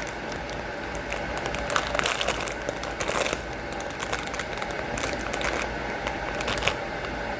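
Crinkling and crackling of a plastic snack bag being handled and opened, in irregular bursts with a few louder rustles.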